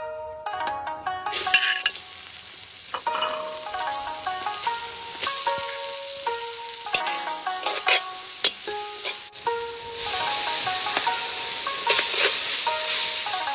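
Chopped red chillies, shallots and dried chillies sizzling in hot oil in a steel wok as they are stir-fried with a metal ladle. The sizzle starts about a second and a half in and grows louder about five seconds in and again about ten seconds in, over a background melody of plucked notes.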